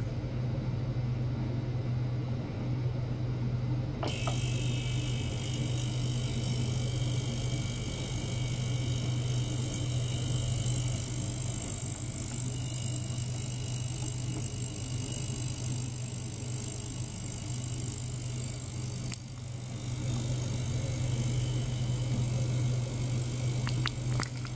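Ultrasonic cleaning bath running with a steady low hum. About four seconds in, a high hiss with faint high whistling tones switches on over the hum. The hiss dips briefly about a second before the end and then returns.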